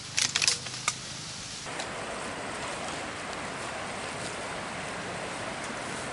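A few sharp clicks in the first second, then the steady rushing of a shallow river running over rocks, which comes in suddenly just under two seconds in.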